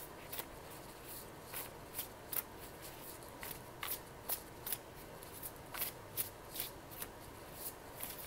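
Tarot cards being shuffled and handled off-camera: a quiet run of light card clicks and snaps, irregular, about two or three a second.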